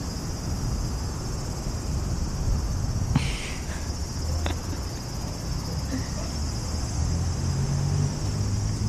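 Steady high-pitched drone of insects, with a low rumble underneath and a couple of short clicks about three and four and a half seconds in.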